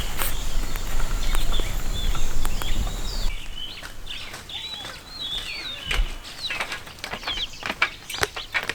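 Farmyard birds chirping in many short, quick calls, with clicks and wing flaps. A rougher, rumbling noise fills the first three seconds and stops abruptly before the chirping takes over.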